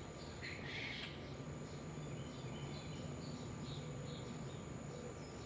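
Faint, steady low rumble of a jet airliner flying high overhead, with small birds chirping repeatedly; a louder burst of chirps comes about half a second in.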